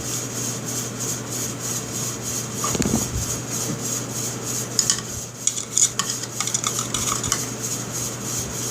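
Plastic and metal parts of a Stevens 320 pump shotgun clicking and knocking as the slide is handled and fitted onto the receiver: one knock about three seconds in, then a run of small clicks. A steady hum runs underneath.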